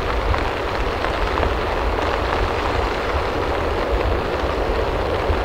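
Steady wind and rain: an even rushing hiss over a deep rumble, with scattered faint ticks of drops.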